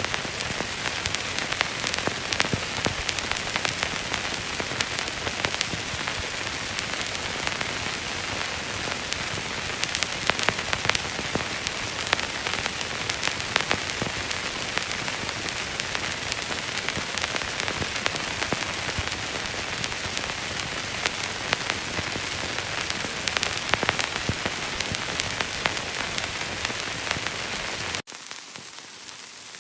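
Old film soundtrack noise: a steady hiss thick with fine crackles and pops. About 28 s in it cuts to a quieter, thinner hiss.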